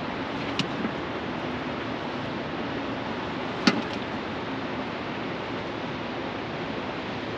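Steady rushing noise, with two short sharp clicks: a light one just after the start and a louder one about three and a half seconds in.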